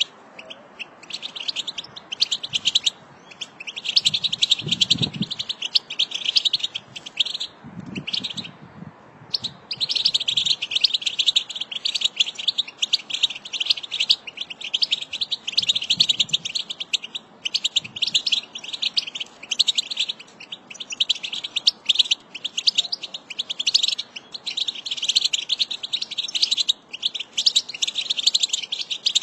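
American goldfinch singing: a long, rapid run of high twittering notes, nearly unbroken, with short pauses about three and nine seconds in.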